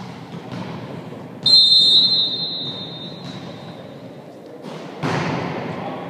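Referee's whistle blown in one long blast about a second and a half in, over the ambient noise of a sports hall. A rise of noise follows about five seconds in.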